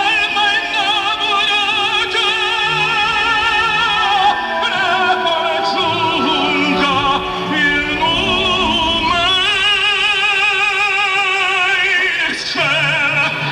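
Opera music: a singer holding long notes with wide vibrato, the notes changing every few seconds.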